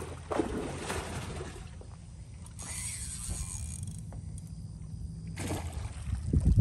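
Water splashing and sloshing in several bursts beside a dock as a hooked alligator gar thrashes at the surface, over a steady low rumble.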